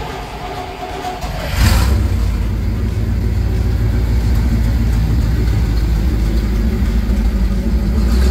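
1975 International dump truck's engine, fed by a newly fitted Holley Sniper throttle-body fuel injection, starting up. It catches about a second and a half in and then runs steadily with a loud low rumble.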